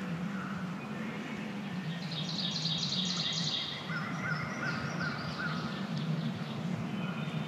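Songbirds singing in spring woods: a high trill about two seconds in, then a quick series of about five short notes near the middle. A steady low hum runs underneath.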